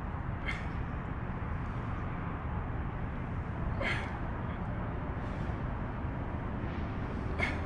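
A lifter breathes out sharply three times, about 3.5 seconds apart, one short breath for each barbell back-squat rep, over a steady low outdoor rumble.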